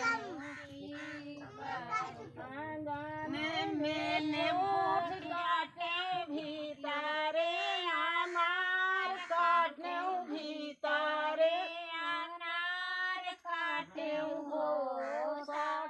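Women's voices singing a sohar, the North Indian folk song sung for a child's birth, unaccompanied, in a high melodic line with short breaks between phrases.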